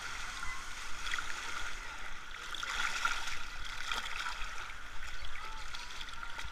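Sea waves washing on a beach, a steady hiss of surf that swells slightly midway.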